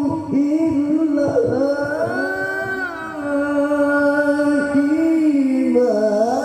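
A male qari reciting the Quran in melodic tilawah style. One voice holds long ornamented notes that slide up and down in pitch.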